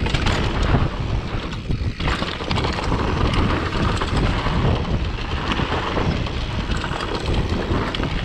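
Strong wind buffeting the camera microphone, mixed with the rumble and rattle of a mountain bike rolling over a dirt trail, loud and steady throughout.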